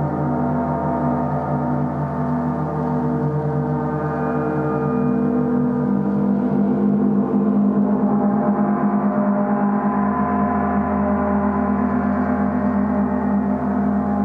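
Portable gong ringing continuously in a dense wash of many overlapping tones, its lower tones swelling about halfway through.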